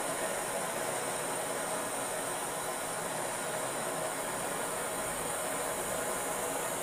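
Handheld canister gas torch burning with a steady, even hiss while brazing a copper pipe joint on an air-conditioner compressor.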